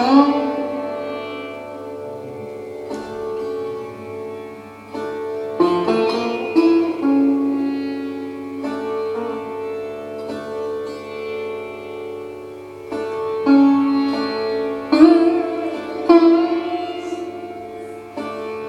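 Sitar played in slow, spaced phrases: single plucked notes that ring on over a steady drone, some of them bent in pitch.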